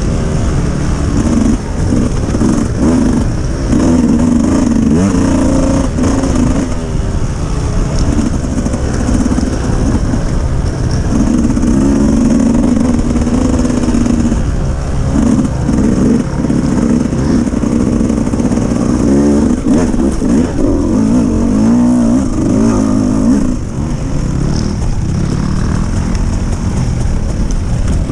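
Dirt bike engine running loud, its pitch rising and falling again and again as the throttle is opened and closed.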